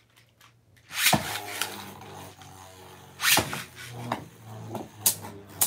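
Beyblade Burst tops, one of them a Caynox, launched into a plastic stadium: a rasping zip of the ripcord launcher about a second in, then the spinning tops give a steady low hum. Another loud rasp comes just past three seconds, and sharp clacks come near the end.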